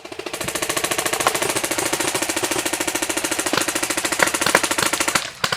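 Airsoft M60 machine gun firing one long full-auto burst of rapid, evenly spaced shots that stops about five seconds in, followed by a couple of sharp clicks.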